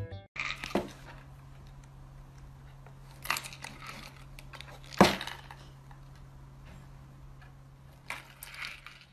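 A cat nosing and pawing at a small paper box on a wooden table: scattered light taps and rustles of the box, with a sharper knock about five seconds in. A steady low hum lies under it.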